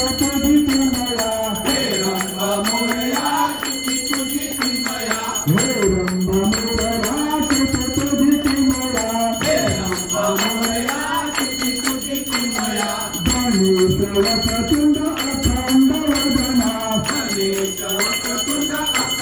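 Congregation singing a Hindu aarti to Lord Ganesh, a slow melody repeated over and over, with hand-clapping. A temple bell rings continuously over the singing.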